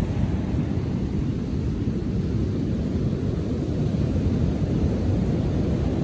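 Heavy ocean surf after a storm: waves breaking and washing up a sandy beach, heard as a steady low rumble that barely rises or falls.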